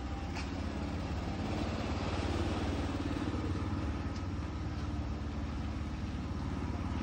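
An engine idling steadily: a low, even hum with no change in speed.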